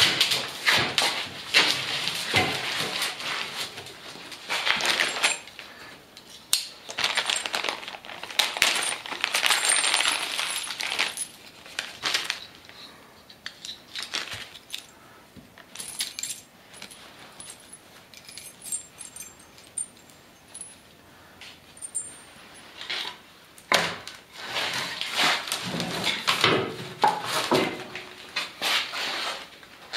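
Small steel hardware for a generator wheel kit (bolts, washers and nuts) clinking and jingling as it is sorted by hand, with irregular knocks and scrapes as the generator frame and wooden boards are moved.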